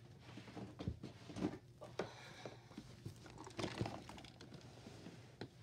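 Small objects being handled and moved about: irregular light knocks and clicks with some rustling, the loudest knocks coming between about one and four seconds in.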